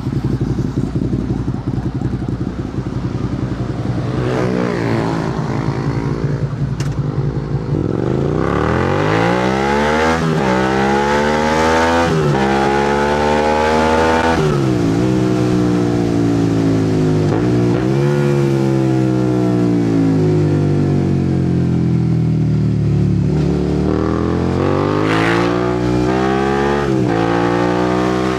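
Suzuki SV650's V-twin engine through an aftermarket exhaust, heard while riding. It runs low and steady for the first several seconds, then revs climb in repeated pulls, each cut off by a sudden drop at an upshift. Around the middle it eases off slowly, and it climbs again near the end.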